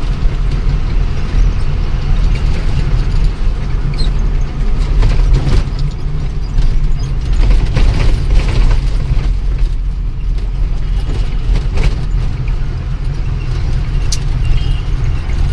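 Steady engine drone and road noise inside the cab of an Ashok Leyland 1214 truck on the move, with scattered rattles and clicks.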